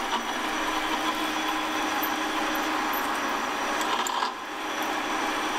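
Axminster metal-turning lathe running steadily while drilling a spacer, with a constant motor hum under the cutting noise. The sound dips briefly about four seconds in, then carries on.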